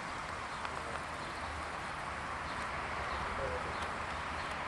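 Steady outdoor background hiss with a few faint bird calls and small ticks.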